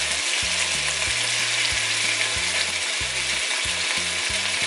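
Hot oil sizzling steadily as diced raw pork is added to a pan of sautéing onion and garlic.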